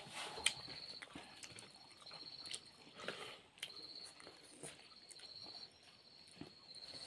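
A cricket chirping in repeated pulsing trains, with scattered soft clicks and smacks of eating with the hands.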